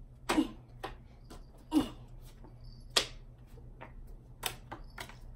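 Playing cards being flicked and thrown, making short sharp taps and slaps roughly every second, some strong and some faint.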